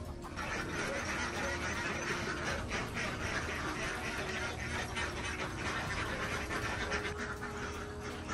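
A large flock of domestic ducks quacking together in a dense, continuous chorus that swells in a moment after the start.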